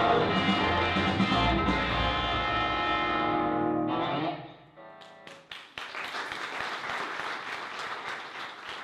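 Electric guitar played through an amplifier, ending on a ringing final note that fades out about four seconds in, followed by audience applause.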